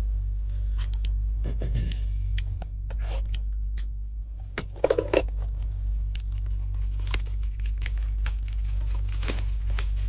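Pokémon trading-card box packaging being opened by hand: plastic wrap and cardboard tearing, crinkling and scraping in short irregular strokes, loudest about halfway through, over a steady low hum.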